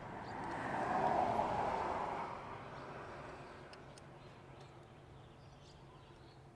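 A vehicle driving past: a noise that swells for about a second, peaks and fades away over the next two seconds. A few faint clicks follow.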